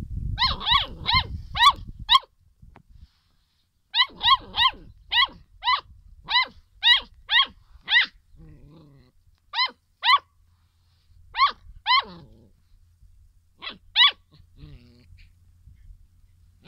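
Puppy yapping: about twenty short, high-pitched yaps, each falling in pitch, in quick runs of two to eight with short pauses between. Low rumbling noise sits under the first few yaps.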